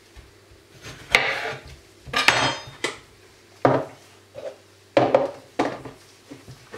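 A kitchen knife and utensils knock and clatter on a plastic cutting board while a lemon is cut up and handled: about seven sharp knocks at irregular gaps.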